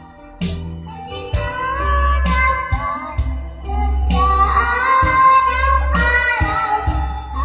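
A young girl singing through a microphone over amplified backing music with a steady beat and bass.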